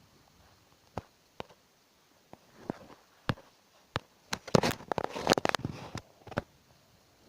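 Scattered light knocks and clicks of objects being handled, with a denser run of clatter about four and a half to six seconds in.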